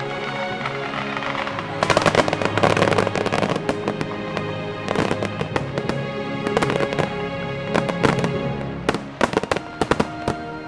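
Aerial firework shells bursting and crackling over music, with a dense crackle about two seconds in and a quick run of sharp bangs near the end.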